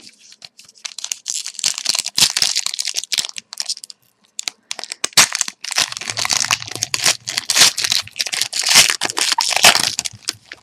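A trading card pack's wrapper being torn open and crinkled by hand: a long run of irregular crackling and rustling.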